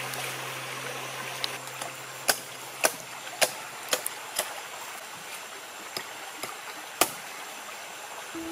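Small hatchet chopping into the husk of a green coconut on a wooden block: five sharp chops about half a second apart, then one more a few seconds later. Steady running water from a stream underneath.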